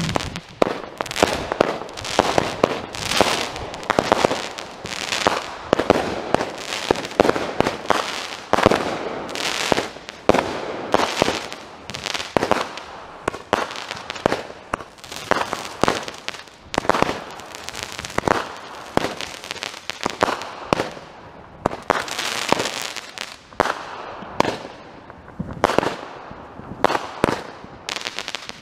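Consumer fireworks going off in rapid succession: a dense, continuous run of sharp bangs and crackling reports.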